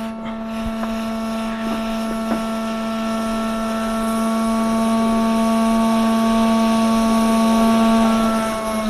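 Hot air rework station blowing, its fan motor giving a steady whirring hum over a rush of air, as it heats a chip to desolder it from the board. The hum grows slowly louder and sags briefly near the end.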